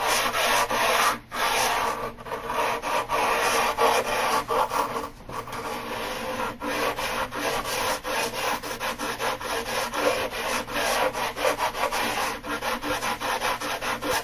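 Sandpaper on a hard wooden sanding block rubbed rapidly back and forth along a particle board edge, sanding off rough particle board and old edge-band glue. The strokes go on steadily, with two brief pauses, about a second in and about five seconds in.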